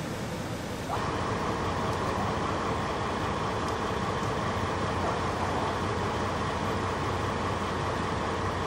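Fire engine running while parked: a steady engine drone with a constant higher hum over it, louder from about a second in.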